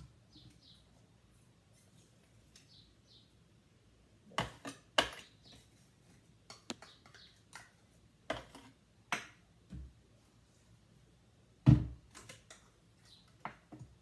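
Scattered sharp clicks and knocks of a measuring cup knocking against a food processor's bowl as crunchy peanut butter is scooped in, the loudest knock near the end.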